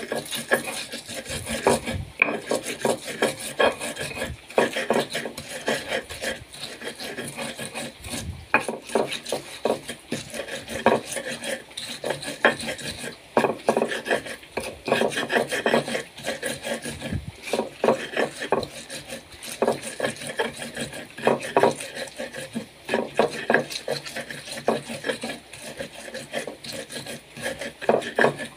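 Pestle grinding chilies, ginger, kencur and garlic into a paste against a stone mortar (cobek): continuous irregular scraping and crushing strokes.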